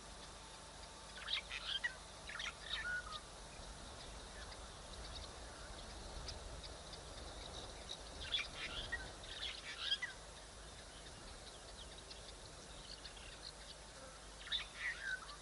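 African wild dogs twittering: high, bird-like chirps with falling pitch, in three short bouts, about a second in, around the middle and near the end.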